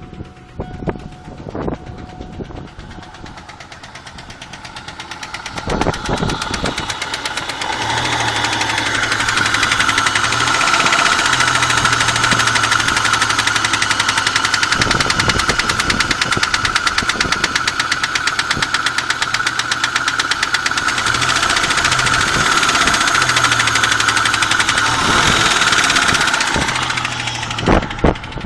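Engine running with a rapid, even knock in time with its turning. The knock grows louder a few seconds in, then holds steady.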